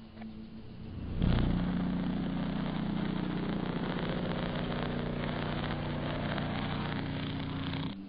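High-voltage arc of a Jacob's ladder, fed by a microwave oven transformer, buzzing loudly and steadily across its copper wires. It strikes suddenly about a second in and cuts off abruptly near the end, with a fainter low hum before it strikes.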